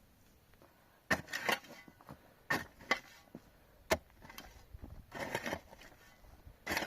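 A handful of sharp knocks with scraping between them, starting about a second in, like hard objects such as wood or stone being handled.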